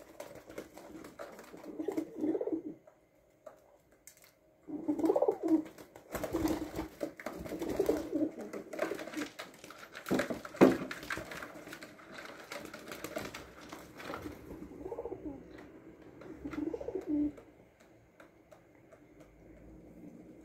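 Feral rock pigeons cooing over and over in low, rounded calls, with scattered clicks and knocks in the middle and one sharp knock about ten seconds in.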